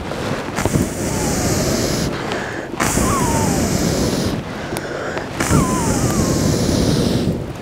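A person blowing hard on a small wood fire under clay pots to rouse the flames: three long blows, each about a second and a half, with short pauses for breath between.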